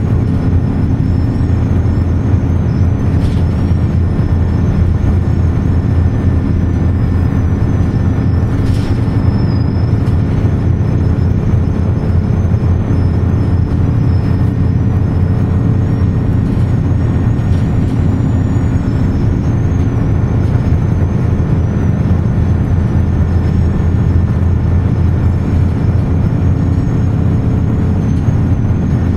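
Inside a 2005 ElDorado EZ Rider II bus cruising at a steady speed: the Cummins ISB diesel engine runs evenly under steady road noise. A thin high whine wavers on top, with a few faint ticks and rattles.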